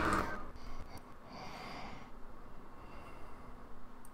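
A hot air rework station blowing steadily, then cutting off abruptly a fraction of a second in. After that it is quiet apart from soft breaths about a second in.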